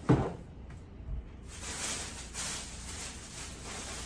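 A single heavy thump right at the start, then a lighter knock and faint scratchy handling noises of purchased items being moved about.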